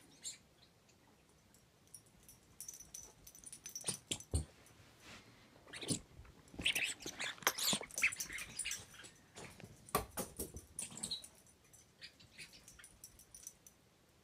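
Small puppy playing with a toy: scattered knocks and scuffles, with a busy run of high-pitched sounds in the middle.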